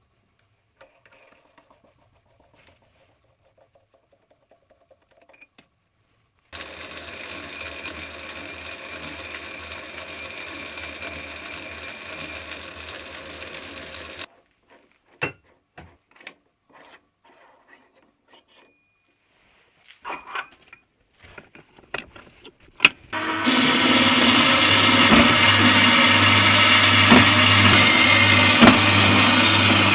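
Quiet handling clicks, then a machine runs steadily for about eight seconds and stops, followed by a few sharp metal clicks and knocks. About 23 seconds in, a horizontal metal-cutting bandsaw starts and runs loud and steady, sawing through the metal bar stock clamped in its vice.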